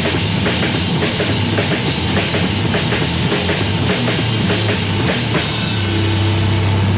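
Heavy metal music from a lo-fi 1987 demo recording: a drum kit hitting steadily over distorted guitar and bass, with a low note held near the end.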